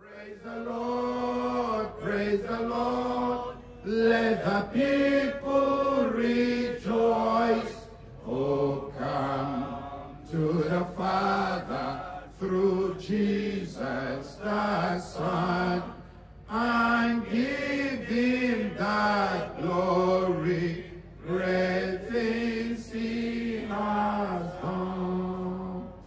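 A man's voice chanting through a microphone in long sung phrases on a few held notes, with short pauses between the phrases.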